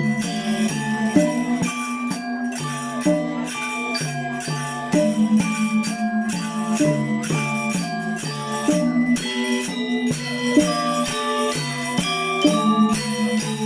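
Balinese gamelan angklung ensemble playing: bronze metallophones ring out notes in quick repeating, interlocking patterns over a low tone that pulses on and off.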